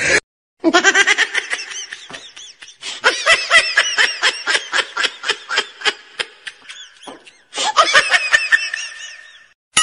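Laughter in fast, rhythmic ha-ha pulses, in two long runs that each cut off abruptly.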